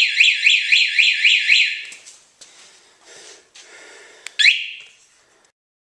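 Winomo motorcycle alarm siren sounding in rapid rising sweeps, about five a second, for about two seconds before cutting off, then one more short burst about four and a half seconds in.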